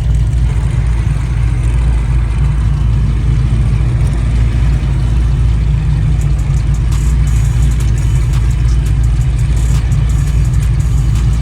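Car engine running with a steady, loud low rumble, with faint scattered crackles in the second half.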